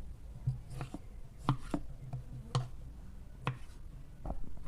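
A knife chopping vegetables on a cutting board: single sharp strikes at an uneven pace, roughly one or two a second.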